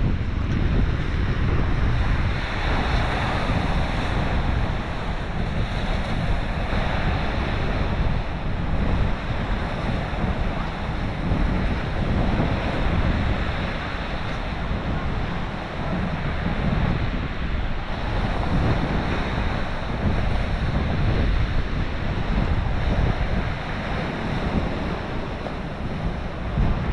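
Strong wind buffeting the microphone over the wash of sea surf, which swells and fades every few seconds.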